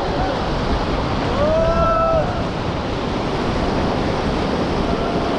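Whitewater rapids rushing around an inflatable raft: a steady loud roar of churning river water, with wind buffeting the microphone. A short rising-and-falling voice call rings out about a second and a half in.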